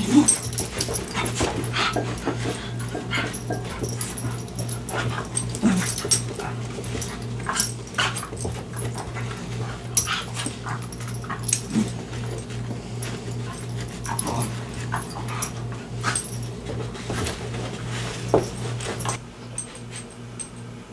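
Two small dogs, a Cavachon and a dark-coated dog, play-fighting: whimpers and yips mixed with quick clicks and scuffles of paws on a wooden floor. The activity eases off near the end.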